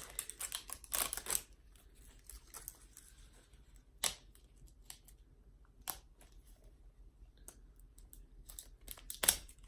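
A tub of Play-Doh being opened by hand: scattered sharp plastic clicks and rustling of the lid and seal, with a few louder clicks spread through.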